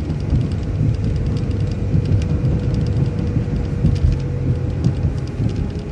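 City transit bus driving, its engine and road noise heard from inside the cabin as a steady low rumble with a faint steady whine and light rattles.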